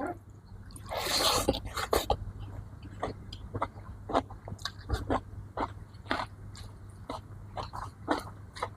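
A person eating close to the microphone: irregular wet mouth clicks and smacks of chewing, a few per second, with a short louder noisy burst about a second in.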